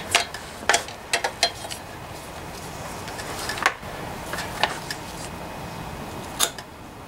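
Hand tools being picked up and handled, including pliers: a scattering of sharp metallic clinks and knocks, about eight separate strikes with a cluster in the first second and a half.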